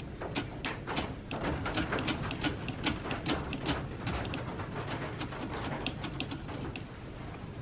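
1950s Olympia Deluxe manual typewriter mechanism clicking and clacking, an irregular run of sharp clicks several a second.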